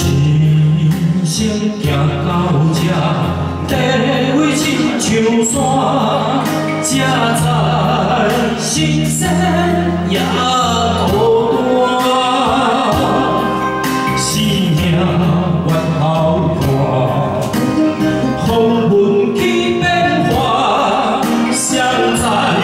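A man singing into a handheld microphone over a karaoke backing track with a steady beat, amplified through a PA.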